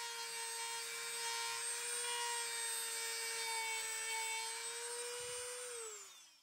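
Craftsman rotary tool with a sanding wheel running at a steady high whine while it smooths corrosion out of a brake caliper bracket's slide pin bore. Near the end it is switched off and the whine falls in pitch and dies away.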